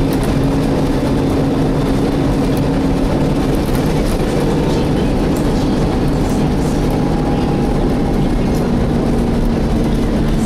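Volvo B7TL double-decker bus's engine cooling fan running with the engine, heard inside the passenger saloon as a loud, steady drone. Its pitch drops slightly about halfway through, and faint rattles from the bus body come through it.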